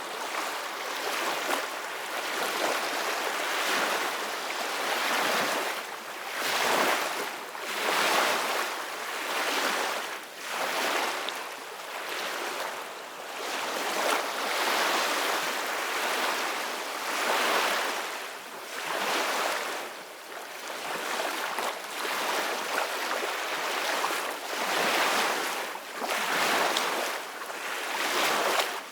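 Ocean waves breaking and washing up a beach, the surf swelling and ebbing in overlapping surges every few seconds.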